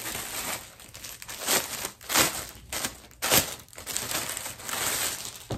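Clear plastic packaging around a garment crinkling and rustling as it is handled, in irregular sharp bursts.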